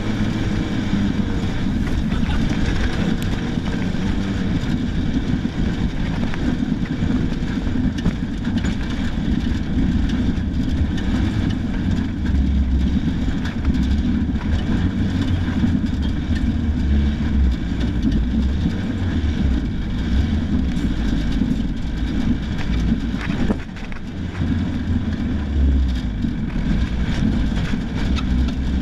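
A rally car driven hard over rough ground, heard from inside the cabin. The engine runs steadily under loud road noise with constant knocks and rattles, and the engine dips briefly about three-quarters of the way through.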